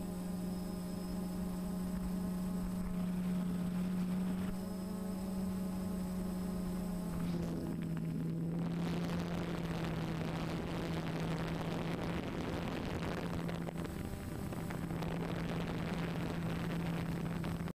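Small remote-controlled aircraft's electric motors and propellers humming at a steady pitch, which drops slightly about seven seconds in. From about eight seconds in, a hiss of rushing air joins the hum.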